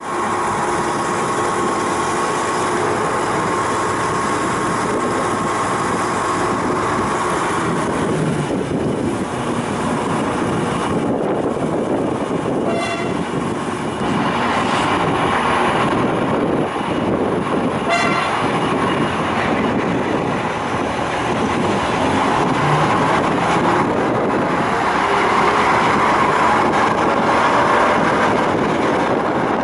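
Zillertalbahn diesel railcar running along the narrow-gauge track: a steady engine and rail noise that swells slightly in the second half, with two brief clicks about five seconds apart.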